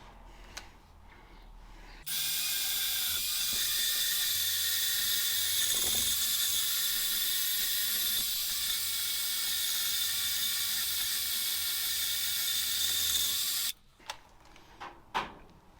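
Powered wire brush scrubbing an aluminium alloy wheel around its cracks, a steady hissing scrape with a faint motor whine, to clean the metal so the crack ends show. It starts abruptly about two seconds in and stops suddenly about two seconds before the end.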